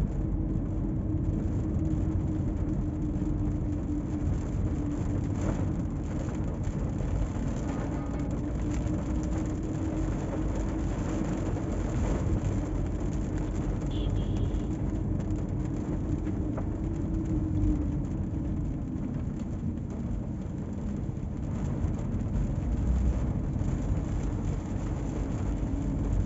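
Toyota Allion driving, heard from inside the cabin: a steady low rumble of engine and road noise with a hum that drifts slightly in pitch.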